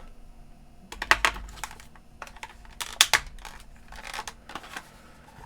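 Light clicks and taps from a small plastic device being handled, a few irregular ones, the sharpest about one second and three seconds in.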